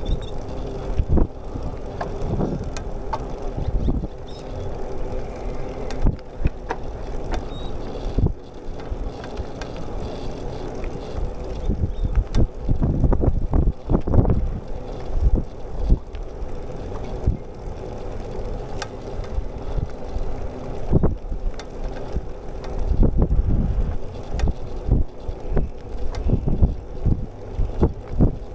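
Wind rushing over the microphone of a moving bicycle, in gusts, with tyre noise on the paved path and scattered light knocks and rattles from the bike.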